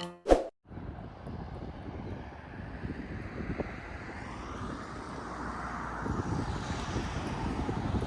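Outdoor field recording: a steady low rumble with hiss, starting just under a second in after a short click.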